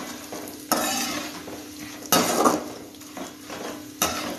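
Perforated steel skimmer scraping and clattering against a kadai as it stirs chopped almonds frying in ghee. Three strokes come about a second and a half apart.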